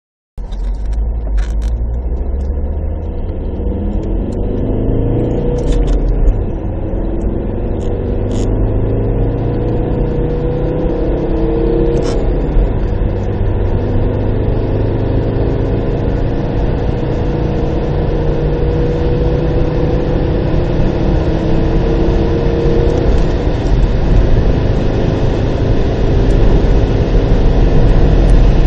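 Audi A6 C4's 2.5 TDI five-cylinder turbodiesel (AEL, 140 hp) under hard acceleration from about 10 to 140 km/h, heard from inside the cabin. The engine note rises in pitch through each gear and drops back at three gear changes, about 5, 12 and 23 seconds in. A hiss of road and wind noise grows with speed.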